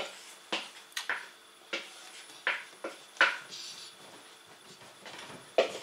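Kitchen dishes and utensils clinking: about seven scattered sharp knocks and clicks at irregular intervals, with a longer pause before the last one.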